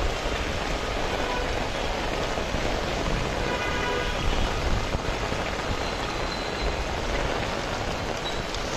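Steady rain falling on a wet street, an even hiss of water. A faint pitched tone sounds briefly about three and a half seconds in.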